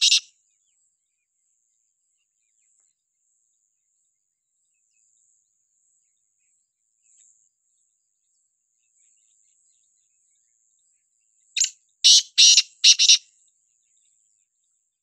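Black francolin calling: one harsh, grating four-note call, a short first note then three longer ones, about three-quarters of the way through, with the last note of an earlier call just at the start.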